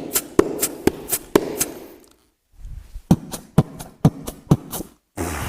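Beatboxing: two quick runs of sharp mouth-percussion hits, about four a second, with a short pause between them, then a noisy burst near the end.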